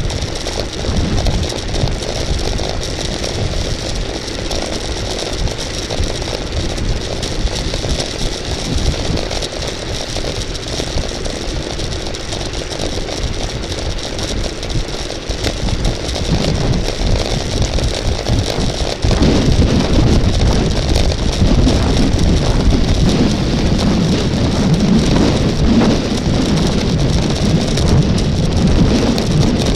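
Steady rush of wind on the microphone with road noise of a moving bicycle, getting louder and heavier about two-thirds of the way through.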